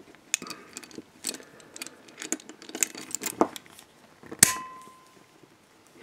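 Antique 1941 MCI handcuff being forced shut by hand: small metallic clicks and scraping of the stiff parts, then one loud sharp metal snap about four and a half seconds in with a brief ring, as the bevelled bolt on its strong spring is pushed back and catches. The cuff closes only with a lot of force.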